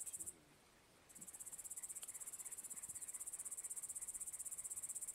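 A cricket-like insect trilling high and steadily in rapid, even pulses. It breaks off for under a second near the start, then resumes.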